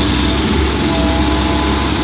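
Komatsu PC130-8 excavator's diesel engine running steadily at working speed.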